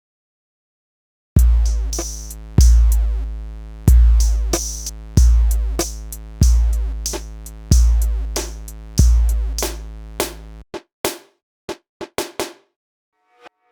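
Korg Triton Extreme VST drum-machine sounds: a beat of seven deep kicks that ring on, about one every second and a quarter, with sharp high hits between them, starting about a second in. It stops short about two-thirds of the way through, and a handful of short, dry percussion clicks follow.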